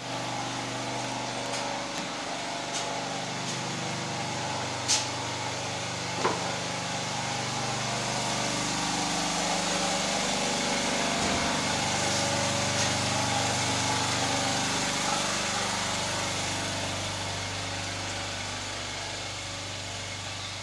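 A small engine running steadily, with two sharp clicks about five and six seconds in.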